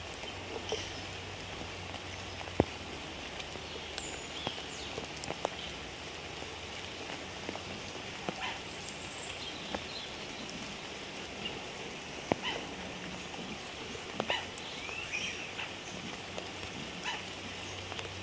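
Steady rain falling, with scattered sharp ticks of drops and short high chirps now and then.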